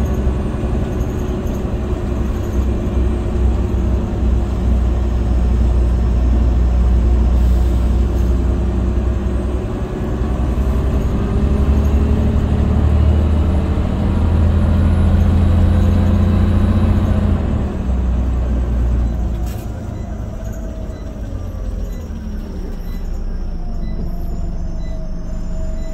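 Scania OmniCity bus heard from inside the passenger saloon: the engine and drivetrain running under load as the bus travels, then easing off about two-thirds through as the bus slows, with a single click and a falling whine.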